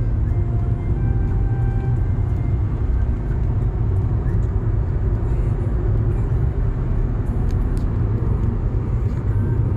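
A car driving along a road: the steady, low rumble of tyres and engine.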